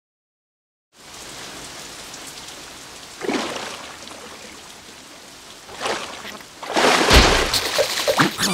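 Animated-cartoon rain sound effect: a steady hiss of falling rain starts about a second in, with louder swells of splashing noise twice. Near the end comes a loud stretch with a deep thump.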